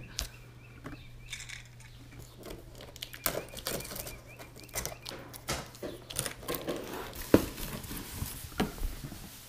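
Cardboard shipping box being opened by hand: scattered scrapes, rustles and taps as the flaps are pulled apart, with one sharp knock about seven seconds in.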